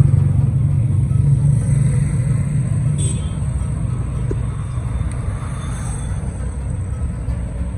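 City street traffic: a nearby vehicle's engine rumble, loudest at the start and slowly easing off, over the steady noise of passing cars. A brief click about three seconds in.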